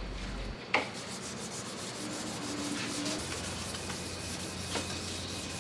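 Hand sanding of a gelcoat piece with sandpaper: an even, scratchy rubbing, with one short sharp scrape just under a second in.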